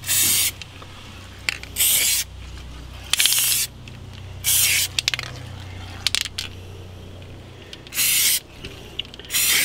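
Aerosol can of heat-resistant spray paint hissing in five short bursts of about half a second each, one per stroke, with a few light clicks between the bursts.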